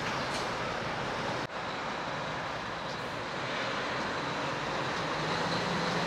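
Steady rushing outdoor background noise, even and unbroken, with a low steady hum joining in about five seconds in.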